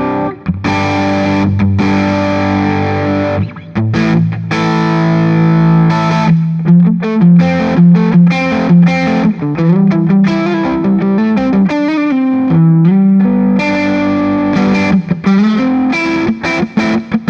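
Gibson Les Paul Special double-cut electric guitar on both P-90 soapbar pickups together, played through a Soldano Astro 20 amp at a mild overdrive. Sustained chords give way to quicker single-note lines about six seconds in, and then chords return near the end.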